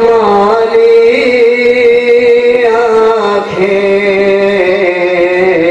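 A man singing a naat in long drawn-out held notes, the first held for about three seconds before the voice steps down to a lower held note.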